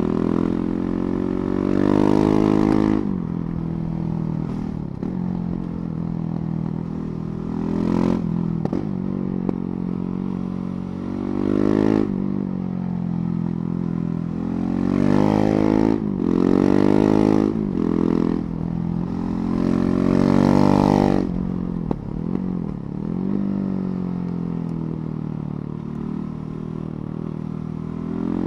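KTM 690 Duke's single-cylinder engine under way, revving up and dropping back again and again as the throttle is opened and closed through the gears. The loudest pulls come about two seconds in, around eight seconds, and in a long run in the second half.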